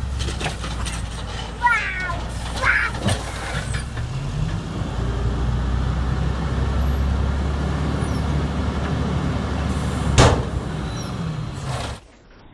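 Natural-gas Waste Management side-loader garbage truck running with a steady low drone while its automated arm picks up a cart. There are knocks and a few short high squeaks near the start, and one loud bang about ten seconds in.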